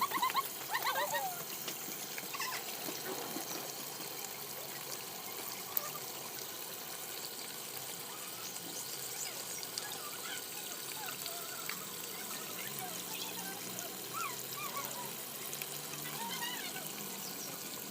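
Water trickling and splashing steadily as it spills down a small homemade fountain fed by a mini electric pump.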